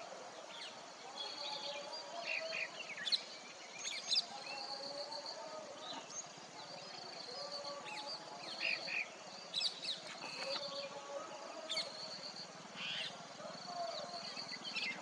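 Several birds chirping and calling over one another in open farmland: short, sharp high calls come every second or two, over a repeated high pulsing trill and lower warbling calls.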